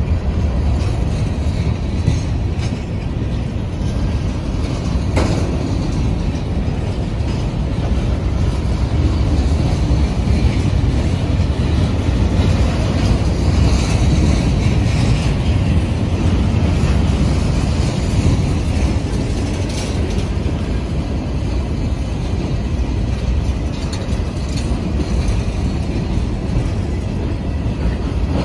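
Freight train cars (covered hoppers and tank cars) rolling past at a grade crossing: a steady, loud rumble of steel wheels on rail, with a few sharp clanks.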